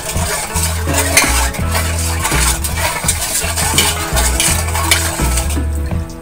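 Metal spoon clinking and scraping in a stainless steel bowl as coconut milk is ladled out over glutinous rice, with background music carrying a steady bass beneath.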